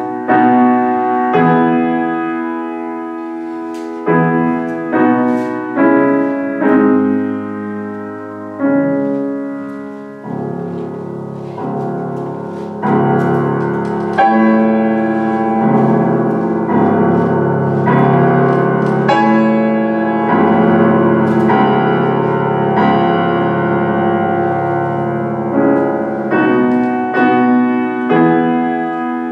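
Kawai grand piano played solo: a run of separately struck chords that ring and die away, then from about ten seconds in a denser, fuller passage over held bass notes.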